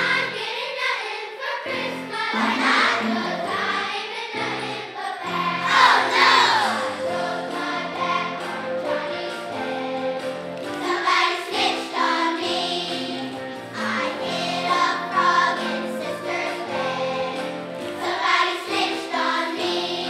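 Elementary school children's choir singing a Christmas song together.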